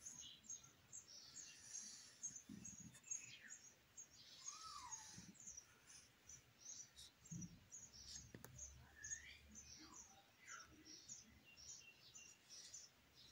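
Faint, quick high chirping of small birds throughout, with a few soft squeaks and taps of a marker drawing on a whiteboard.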